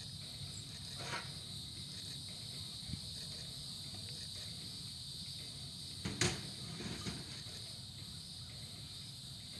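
Steady high-pitched chorus of insects, with a few short knocks over it, the loudest about six seconds in.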